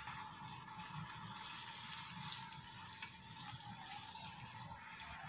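Chopped green onions frying in oil in a pot, a soft, steady sizzling hiss.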